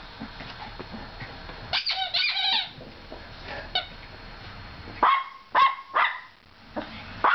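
Small dog barking, a run of short sharp barks in the last two and a half seconds. A high-pitched squeal comes a little under two seconds in.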